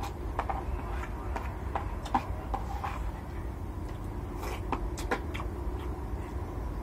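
Eating sounds: a spoon scraping and tapping on a plastic plate, with mouth sounds of chewing and smacking, heard as irregular short clicks over a steady low hum.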